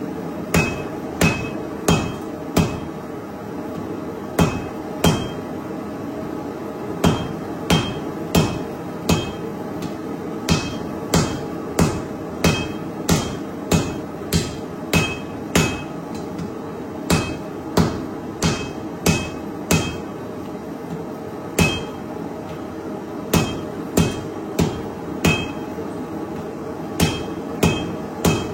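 Hand hammer striking hot steel on an anvil, forge-welding a layered knife billet. The blows come in runs of about one and a half a second with short pauses between runs, each blow leaving a brief high ring. A steady rushing noise runs underneath.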